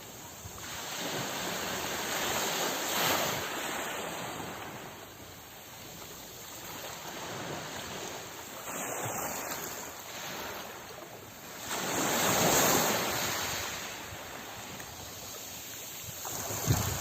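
Sea waves breaking and washing up the shore, rising and falling in swells, with the loudest surges about three seconds in and about twelve seconds in.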